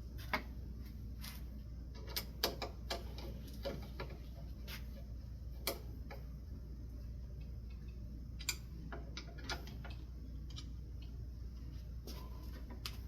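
Irregular light clicks and taps of screws and metal hardware being handled while blades are fitted to a ceiling fan, over a steady low hum.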